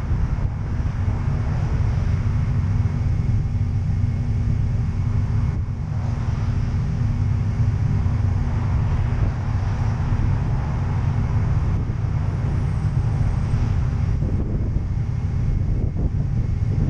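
Subaru Impreza WRX STi Type R's turbocharged flat-four engine running under way: a steady low drone with road and wind noise over it. A few brief louder bursts come near the end.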